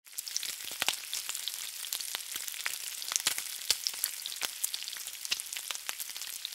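Food frying in hot oil: a steady sizzle with frequent sharp crackles and pops.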